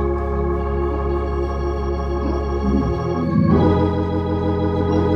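Organ playing sustained chords behind the preaching, with the chord changing about three seconds in and again half a second later.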